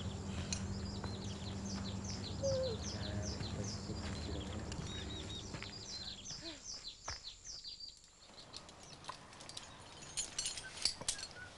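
A songbird calling in a quick series of short, high, falling chirps, about three a second, over a low steady hum that fades away about two-thirds of the way through. Near the end there are a few sharp clicks and clinks.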